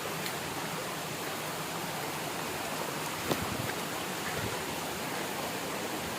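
Steady rush of a waterfall's falling water, with a single sharp click a little over three seconds in.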